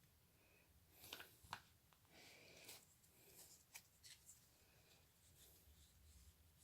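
Faint rustling and light clicks of trading cards being handled, with a few soft scrapes.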